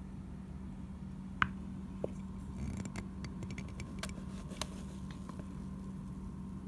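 A glass cup of frothy yeast mixture being handled and poured into a plastic bowl: one sharp knock about a second and a half in, then a scatter of small clicks and wet taps as the foamy liquid pours out, over a steady hum.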